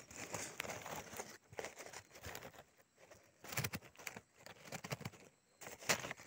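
Dry leaves and forest-floor litter rustling and crackling under hands working a rope snare, with a few sharper knocks, the loudest near the end.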